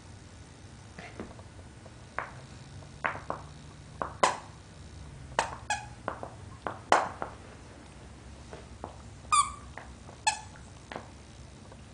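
Squeaker inside a plush toy squirrel squeaking as a Shiba Inu bites and tugs it out of a plush tree-trunk toy: a string of short squeaks, with two longer pitched squeaks near the end.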